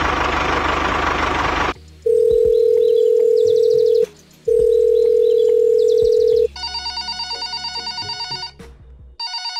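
A tractor engine sound cuts off after about two seconds, then a telephone line tone sounds twice as long steady beeps of about two seconds each, followed by a trilling phone ringtone that rings twice.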